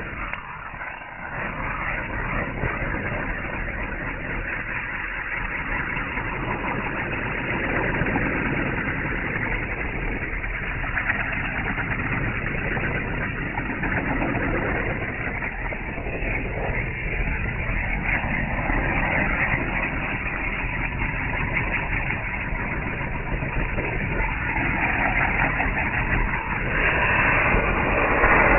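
Small spark-spraying firecrackers in a ring burning one after another under an upturned plastic bowl: a steady rushing hiss with no sharp bangs, swelling a little near the end.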